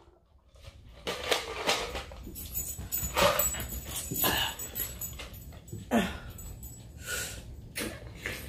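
A small pet dog whimpering and yelping in short, irregular bursts, mixed with short noisy breaths.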